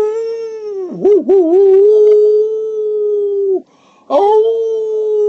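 Two long, steady wolf-like howls. The first wavers briefly about a second in, and the second starts about four seconds in.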